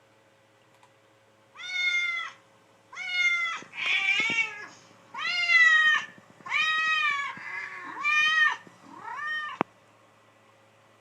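Cat meowing sound effect played back: a string of about seven drawn-out meows, each rising and falling in pitch, cut off abruptly near the end.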